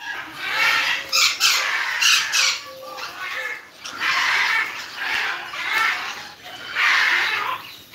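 Parrots squawking in aviaries: a run of loud, harsh calls, several overlapping.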